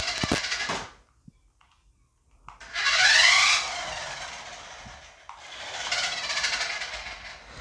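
Cheap toy RC truck's built-in electronic noise, played through its small speaker: a harsh, loud sound with sweeping rises and falls in pitch. It cuts off about a second in, and after a short pause it sounds again twice.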